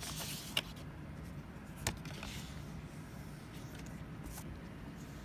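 Quiet handling of a cardboard collector-card sleeve as the cards are drawn out: a short rustle at the start, a sharp click near two seconds in, and faint light ticks, over a low steady room hum.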